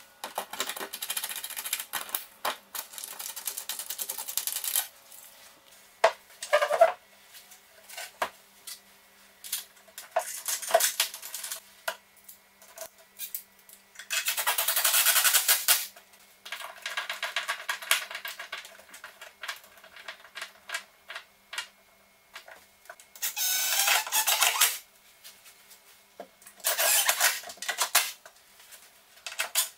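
Cordless drill-driver driving screws into a kitchen base unit's frame, in several runs of one to three seconds, the loudest about halfway through and near the end, with clicks and knocks of handling in between.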